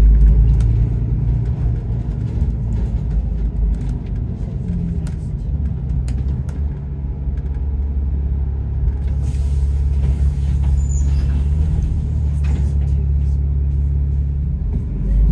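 Bus engine rumbling from inside the passenger cabin. It runs steadily at idle while the bus waits at a junction, then rises near the end as the bus pulls away.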